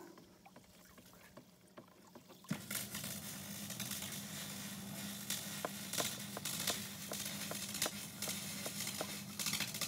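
Caustic soda (sodium hydroxide) granules shaken from a plastic tub and pouring into a tub of water to mix the electrolyte for a rust-removal electrolysis bath. The pour starts about two and a half seconds in, a steady hiss scattered with many small pattering clicks as the granules hit the water.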